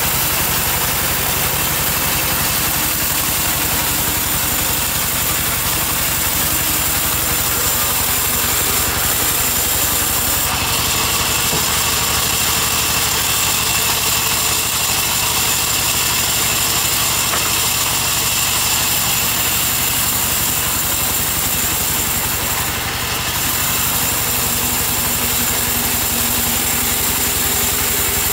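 Sawmill band saw running and cutting lengthwise through a log, a loud steady machine hum with a high whine and the hiss of the blade in the wood. A brighter hiss comes in about ten seconds in, and the sound dips briefly about two thirds of the way through.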